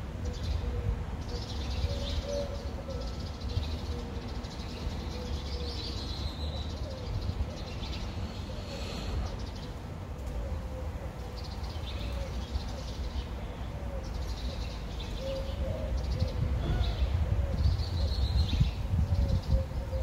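Small birds chirping in short bursts every few seconds, with low pigeon cooing throughout, over a steady low rumble of wind on the microphone that grows louder near the end.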